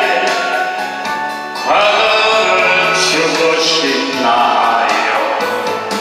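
A Korean trot song playing as a karaoke backing track, with a man singing into a microphone.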